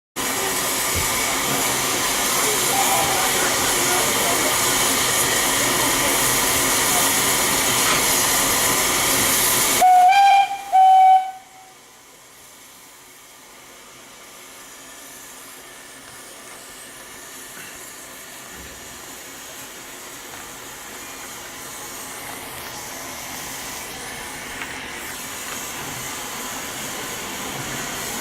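Steam locomotive hissing loudly and steadily as it blows off steam. About ten seconds in comes a whistle of two short blasts, a longer one and then a brief one. The hiss stops and a much quieter train rumble follows, slowly growing louder as the train gets under way.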